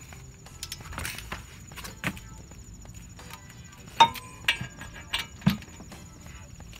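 Metal hand tool work on a car's front brake caliper bracket as its bolts go back in. Scattered clicks and knocks give way, about four seconds in, to one sharp metallic clink with a brief ring, then a few lighter knocks.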